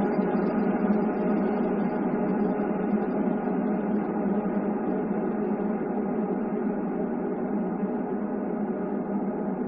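The reverb-drenched tail of a slowed-down song: a steady, sustained wash of sound with no beat or voice, slowly getting quieter.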